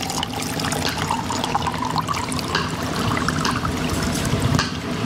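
Coconut water poured in a steady stream from a carton into a glass of ice cubes, splashing onto the ice with many small ticks.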